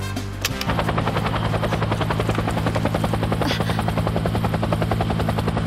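Helicopter rotor sound effect: a fast, steady chopping over a low drone that starts under a second in as the music cuts off.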